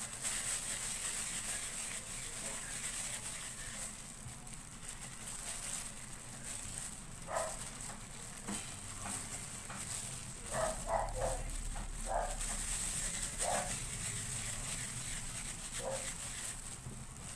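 Several short barks from a dog in the background, bunched between about seven and fourteen seconds in, with one more near the end. Underneath them is a steady hiss with the soft rustle of plastic-gloved hands working a crumbly graham mixture.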